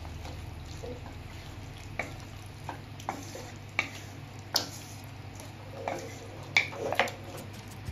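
A spatula scraping and knocking against a wok as chicken pieces are stirred through a simmering soy-garlic sauce, with a light sizzle. The sharp knocks begin about two seconds in and come more often near the end, over a steady low hum.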